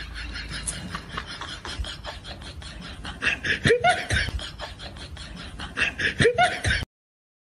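Laughter sound effect: a run of quick, rhythmic ha-ha pulses that grow louder in two bursts, the second about six seconds in, then cuts off abruptly to silence near the end.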